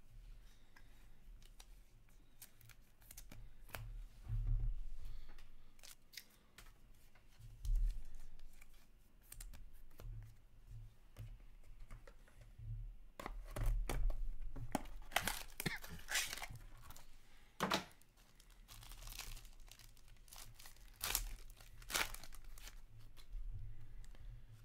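Small trading-card boxes and a foil card pack being handled and torn open: scattered clicks and knocks, with louder stretches of tearing and crinkling a little past the middle and again near the end.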